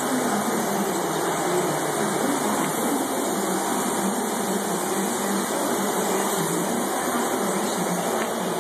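Steady mechanical drone of a running machine, an even noisy hum with no breaks.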